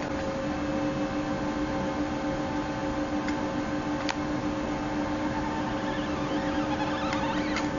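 Diode laser hair removal machine running just after being switched on: its cooling fans and water-cooling system give a steady hum with a few constant tones, with a couple of faint clicks.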